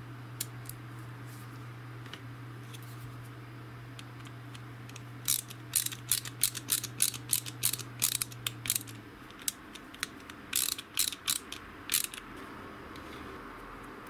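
Ratcheting screwdriver clicking in quick runs as it drives a small screw into a remote control's circuit board. The clicks grow loud about five seconds in and stop shortly before the end.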